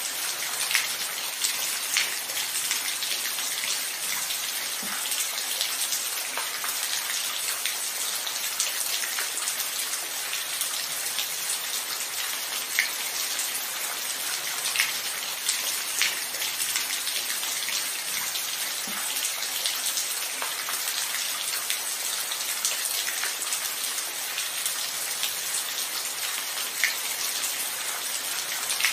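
Steady rain: an even hiss of falling rain with individual drops ticking sharply at irregular moments. No thunder.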